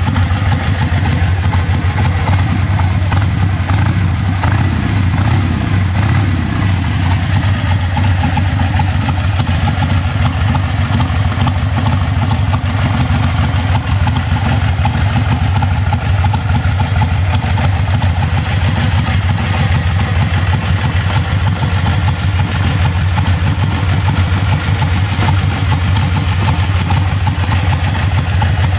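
1985 Harley-Davidson Ironhead Sportster's 1000 cc air-cooled V-twin idling steadily.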